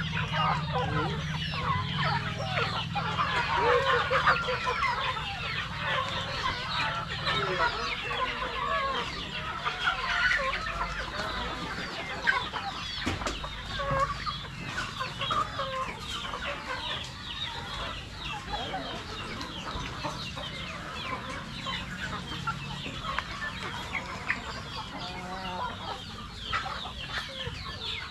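A flock of Rhode Island Red chickens clucking continuously, with many birds' calls overlapping.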